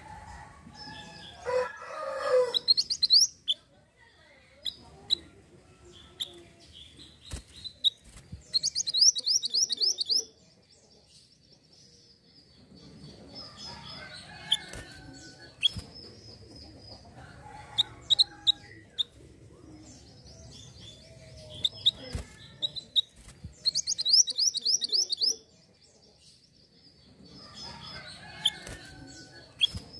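Caged minivet (mantenan) singing: loud bursts of fast, high trilled notes every several seconds, linked by thin, drawn-out high whistles. A lower, rougher call sounds near the start.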